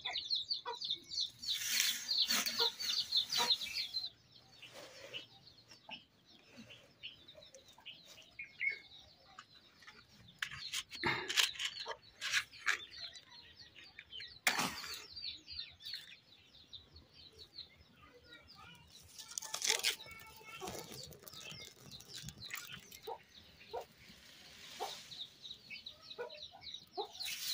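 Dry leaves and twigs rustling and crackling as they are handled and set alight, with a sharp match strike about halfway through. Chickens cluck and small birds chirp in rapid runs of high notes near the start and again near the end.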